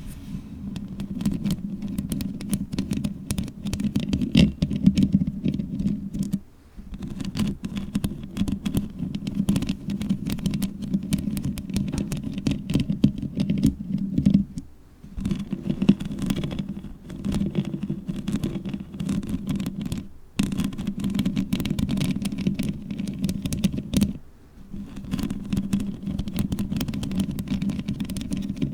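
Long fingernails scratching and rubbing on a microphone and its foam cover, close enough to make a dense stream of fast scratchy clicks over a heavy low rumble. It stops briefly about four times.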